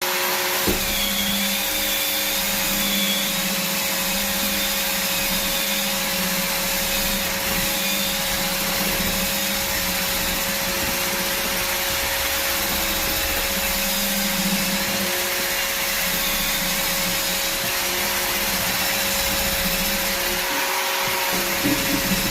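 Evolution R225DWS drywall sander running with its dust extraction: a steady motor whir and airflow hiss with a slightly wavering pitch.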